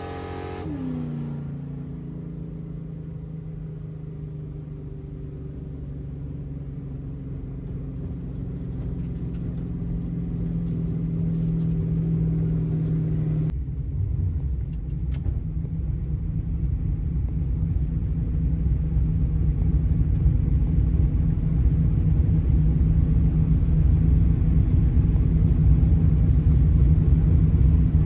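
Car engine running, a steady low drone that grows louder; about halfway through it changes suddenly to a dense low rumble that keeps building.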